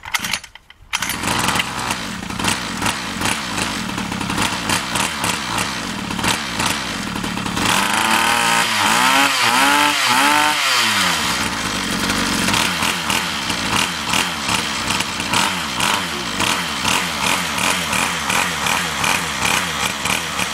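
Orion mini dirt bike's small two-stroke engine starting from cold, catching about a second in and then running. It is revved up and down several times near the middle, then settles back to a pulsing idle.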